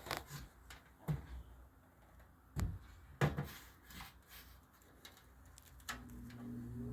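Several separate clicks and knocks of a box fan being handled and its switch worked. About six seconds in, the fan's electric motor switches on with a steady hum and a whine that rises as it spins up.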